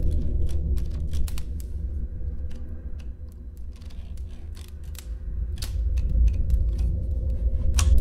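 Manual portable typewriter keys struck in scattered single clacks, a few quick ones at the start, sparse in the middle, and a few more near the end, over a steady low rumble.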